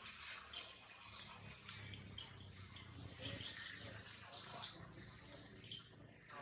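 Birds chirping in the surrounding forest: short, high, repeated chirps, about two a second.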